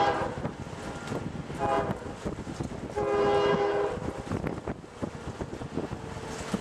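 Distant CSX freight locomotive air horn sounding a chord of several notes: the end of one blast, a short blast, then a longer blast of about a second.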